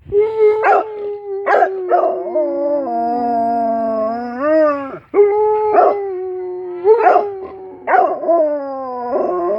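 A dog howling for its absent owner: two long howls, the first sinking in pitch and then lifting before a short break about halfway, the second running on. Several short, sharp cries break into the howls.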